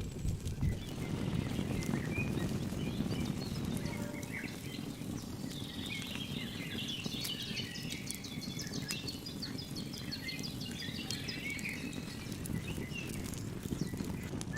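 Birds chirping, with many short calls clustered through the middle, over a steady low outdoor rumble.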